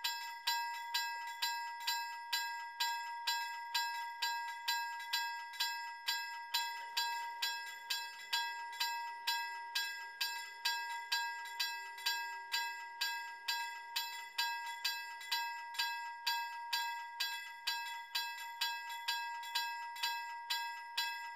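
Level crossing warning bell ringing in an even rhythm of about two strikes a second. It warns of an approaching train while the crossing barriers come down.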